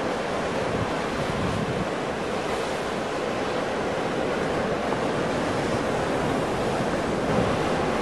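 Ocean surf: waves breaking and washing in a steady, continuous rush, with no single crash standing out.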